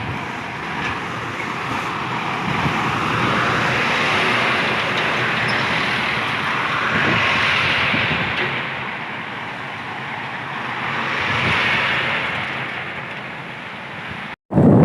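Heavy rain driven by gusty wind, a steady rush that swells and eases in waves every few seconds. It cuts out for an instant near the end and returns louder.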